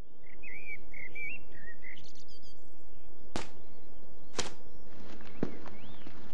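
Songbirds singing, with warbling whistles and chirps in the first two seconds, over steady background noise; two sharp swishing strokes come about three and four seconds in, with a fainter one a second later.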